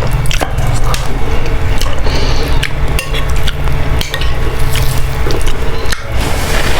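Eating boiled instant noodles close to the microphone: cutlery clicking against the bowl many times amid chewing.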